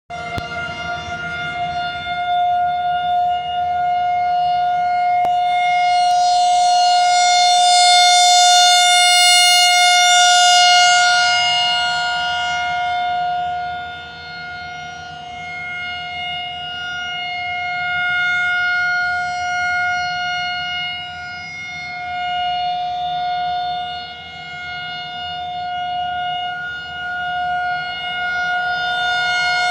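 Federal Signal 2001-SRN rotating electromechanical outdoor warning siren sounding a loud, shrill steady tone for its monthly test. The pitch holds steady while the sound swells and fades about every ten seconds as the siren head turns.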